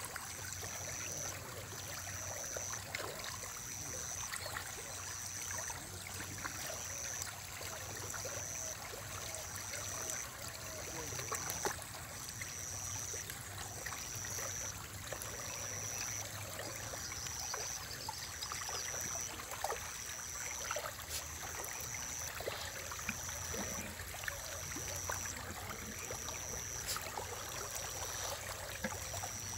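Pond water trickling and lapping, with small splashes where catfish break the surface. A faint steady hum runs under it, and a short high tone repeats evenly about every second and a half.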